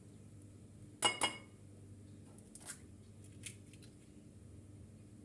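An egg is knocked twice on the rim of a bowl, two sharp taps with a brief ring, as it is cracked to separate the white from the yolk. A few faint clicks follow.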